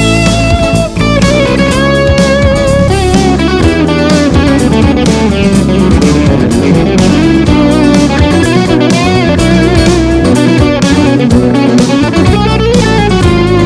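Funk music led by an electric guitar, with a low bass line underneath and regular rhythmic hits.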